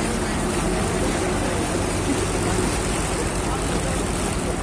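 Boat engine running with a steady low drone, over the rush of churning sea water.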